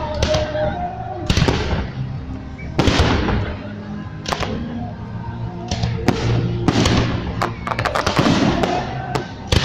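Fireworks display: salute shells bursting one after another with loud booms and sharp cracks, each trailing off, and a quick run of crackling bursts about eight seconds in.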